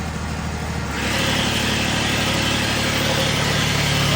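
Perkins diesel engine of a 30 kVA generator set running steadily during a load test. About a second in it gets a little louder, with more hiss, and near the end its low hum strengthens.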